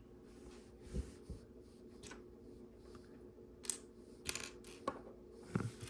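Small plastic LEGO pieces clicking and clattering in scattered light clicks as pieces are handled and searched through, busiest about four to five seconds in.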